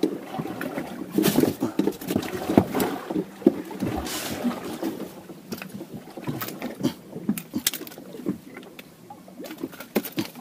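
Irregular knocks and clatter aboard a small fishing boat, sharp taps coming every fraction of a second.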